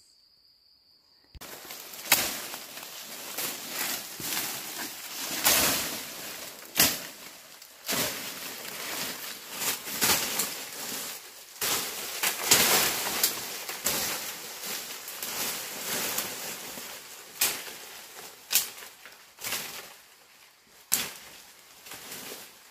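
Footsteps and brushing through dense undergrowth: dry leaves and twigs rustling, with sharp snaps and cracks at irregular intervals. It starts about a second in.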